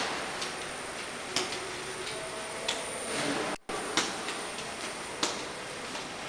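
Footsteps on a hard marble floor: sharp clicks about every second and a quarter over a steady hiss. The sound cuts out for an instant a little after halfway.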